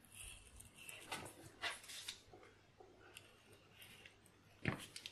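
Rotary cutter rolling through pattern paper on a cutting mat: faint, scattered crisp rasps of the blade cutting, with a sharper tap near the end.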